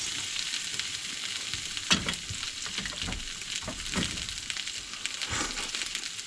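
Food frying on a barbecue hotplate: a steady sizzle broken by a few short sharp knocks, the loudest about two seconds in.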